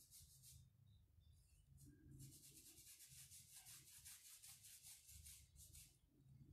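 Paintbrush scrubbing paint into the bare wood of a wooden cable spool in quick, faint, scratchy strokes, about five a second. There is a pause of about a second and a half near the start, and the strokes stop about six seconds in.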